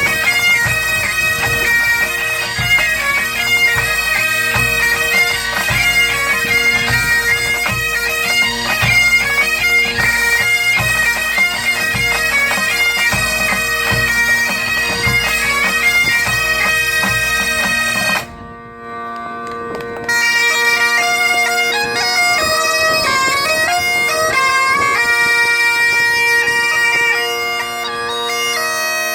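Bagad pipe band playing: bagpipes with steady drones under a moving chanter melody, over regular drum beats. About 18 seconds in the sound drops away for a moment, then the pipes carry on without the drums.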